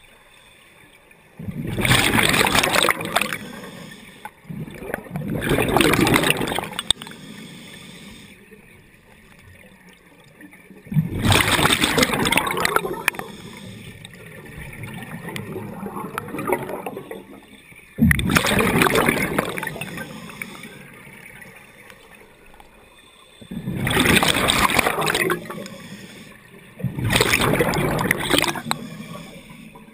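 Scuba diver breathing underwater through a regulator: seven loud rushes of exhaled bubbles, each two to three seconds long, with quieter pauses between breaths.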